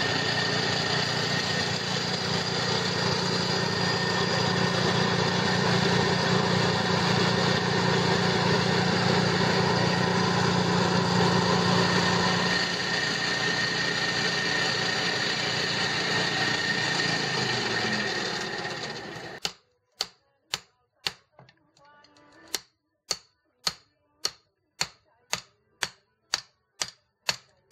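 A forge's motorised air blower (bellows machine) running with a steady rushing hum as it fans the charcoal fire; the deep part of the hum drops away a little past the middle. Then it gives way abruptly to a hand hammer striking a red-hot machete blade on an anvil, about two even blows a second.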